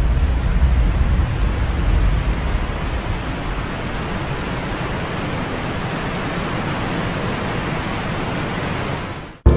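Steady rushing noise, with a low rumble in the first few seconds, that cuts off just before the end.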